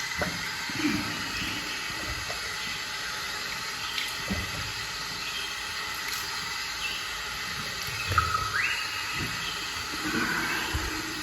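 Tap water running steadily into a sink, with irregular splashing as a face is rinsed by hand. A short rising whistle comes about eight seconds in.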